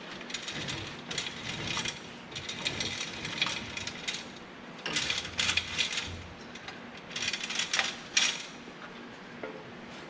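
Metal parts of an MBO T49 buckle folder clicking and rattling in four short bursts as a component is worked loose by hand.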